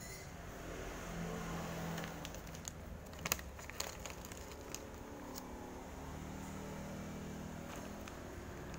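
Shop background noise: a steady low rumble with a faint hum, broken by several sharp clicks between about three and five and a half seconds in, the loudest just after three seconds.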